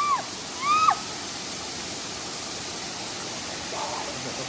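Steady rushing of falling water from a waterfall. Two short pitched calls, each rising and then falling, sound within the first second.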